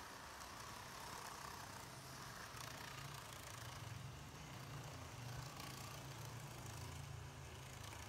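N-gauge model trains running on plastic track: a faint, steady low hum of the motors and wheels.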